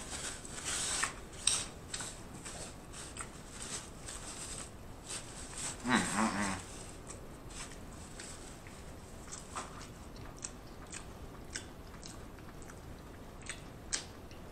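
Close-miked chewing: wet mouth clicks and smacks, dense at first and then sparse. A short hummed "mm" about six seconds in.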